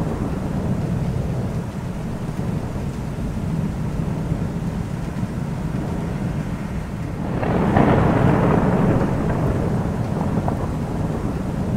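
Thunderstorm: steady rain under a continuous low rumble of thunder. About two-thirds of the way in, a louder roll of thunder swells up and dies away over a couple of seconds.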